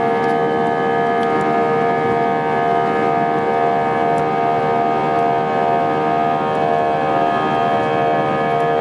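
Airbus A320's IAE V2500 turbofan engines at takeoff thrust during the takeoff roll, heard from inside the cabin: a loud, steady whine of several held tones over a low rumble.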